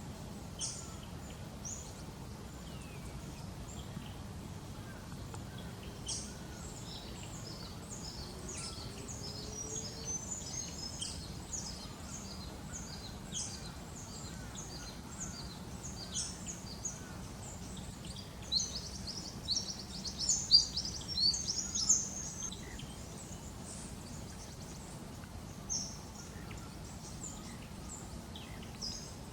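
Eastern spinebills calling: short, high piping notes scattered throughout, with a loud burst of rapid notes about two-thirds of the way through, over a steady low background hum.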